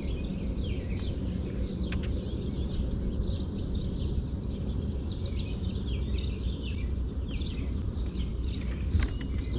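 Many birds chirping and calling, with a steady low rumble underneath.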